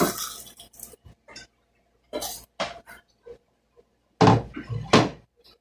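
Table-eating sounds: scattered short clinks and taps of utensils on plates, with two louder bursts near the end.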